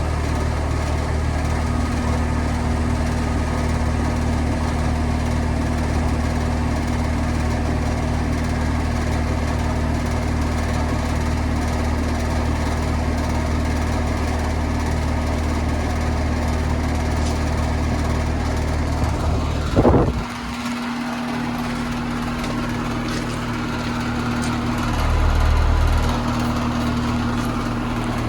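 Carrier Sentry 3.5-ton air conditioner condensing unit running just after startup: its Copeland scroll compressor and condenser fan give a steady low hum with a steady tone above it. About twenty seconds in there is one short loud knock, after which the deepest part of the hum drops away for a few seconds and then comes back.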